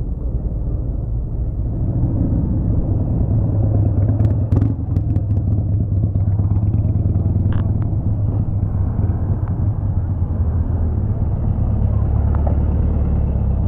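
Motorcycle engine running steadily at low speed while riding, a continuous low drone.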